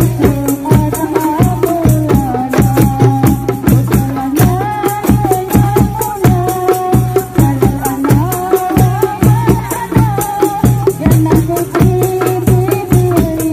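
Hadroh ensemble performing a sholawat: women's voices singing a held, gently bending melody into a microphone over a steady, dense rhythm of hand-struck rebana frame drums, a mallet-struck bass drum and a darbuka.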